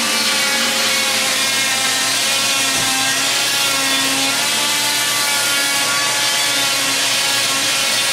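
Oscillating cast saw with its built-in dust vacuum running steadily, the blade pressed against and cutting through a fiberglass leg cast.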